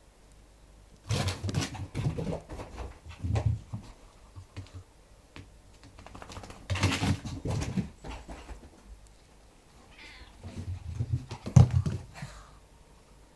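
Domestic cat making sounds in four short bursts, the loudest near the end.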